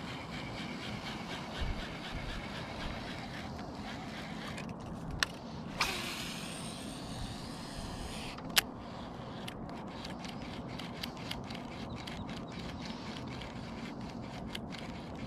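A cast and retrieve with a fishing rod and reel: a click, line hissing off the reel for about two seconds in a hiss that falls in pitch, a sharp snap, then a run of quick light ticks as the line is reeled back in. A low steady rush of water and air runs underneath.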